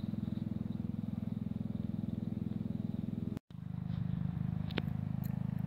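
Steady low motor-like hum with a fast, even throb, dropping out for a moment about three and a half seconds in and then resuming; a faint click follows about a second later.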